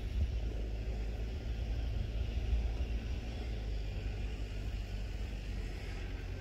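Wind buffeting the microphone, a steady low rumble that rises and falls irregularly.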